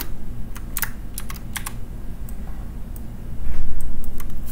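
Computer keyboard typing: scattered, uneven key clicks as commands are entered in a terminal, over a steady low hum. A louder low rumble swells for about a second a little past three seconds in.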